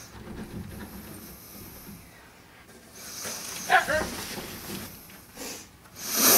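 Siberian husky and cat squaring off: a brief whining vocal sound from the husky about halfway through, with light scuffling, and a loud hiss near the end.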